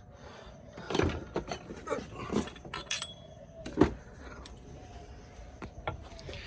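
A scatter of sharp metallic clinks and knocks from the old crankshaft pulley and the new ATI damper being handled and set side by side, the loudest knock a little before the middle.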